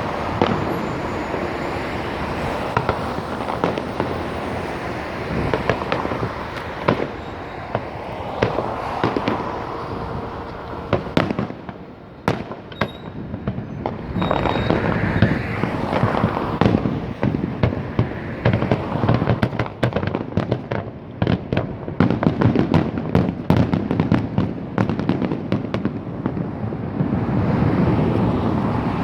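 Fireworks display: a dense run of bangs and crackling bursts that eases off about twelve seconds in, then builds again into rapid crackling.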